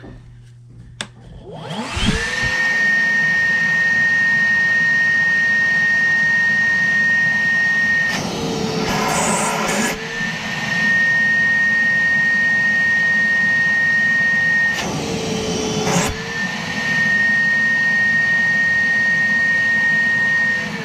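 Wet/dry shop vacuum starting about two seconds in and running with a steady high whine as it sucks on a clogged furnace condensate drain line. Twice the pitch dips briefly under a rush of noise as the suction pulls through the line. The stopped-up drain is what is tripping the furnace's pressure switch.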